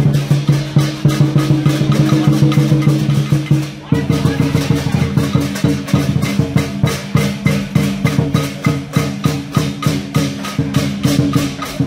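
Music with a quick, steady beat of clicking percussion over held pitched tones; the tones change pitch about four seconds in.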